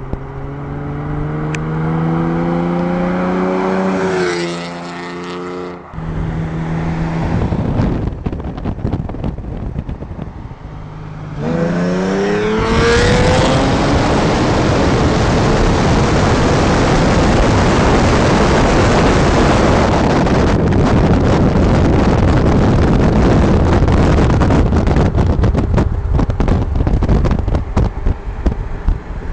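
Hyundai Genesis Coupe's 3.8 V6 on a custom exhaust accelerating hard. Its note climbs through the revs for about four seconds and drops off, then climbs again about eleven seconds in. From then on a loud, steady rush of wind on the microphone from a car moving at speed covers most of the engine.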